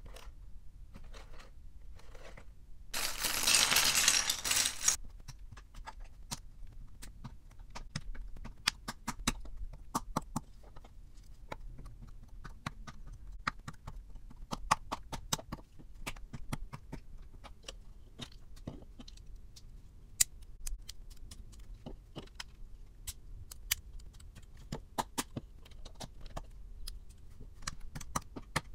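LEGO bricks clicking and snapping together as a BrickHeadz llama is built by hand, with many short sharp clicks and small plastic clatters. About three seconds in comes the loudest sound: a two-second rustle and tear of the packaging being opened.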